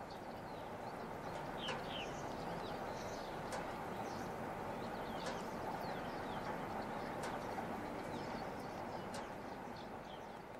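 Steady low background rumble that swells and eases off, with small birds chirping now and then and a few sharp ticks.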